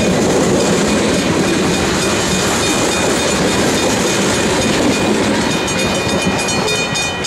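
Loaded freight cars of a manifest train (tank cars and boxcars) rolling past: steel wheels on rail making a steady loud rumble with clickety-clack and a thin steady high tone above it. A run of sharper wheel clicks comes near the end as the last cars pass.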